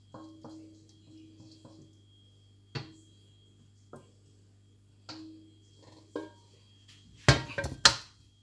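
A wooden spatula taps and scrapes against a metal wok as braised pork is pushed out onto a plate, the wok ringing briefly at each tap. Near the end there is a louder clatter as the wok is set down on the glass cooktop.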